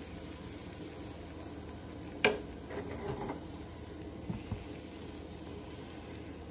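Steady low hum with one sharp knock about two seconds in, then about a second of light rattling and a couple of soft taps, as a nonstick pan of crepe batter is handled.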